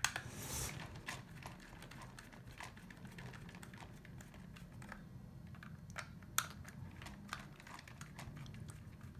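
Small Phillips screwdriver backing screws out of a plastic RC car body: faint scattered clicks and taps of the driver and plastic parts, with a brief scrape near the start and one sharper click about six seconds in.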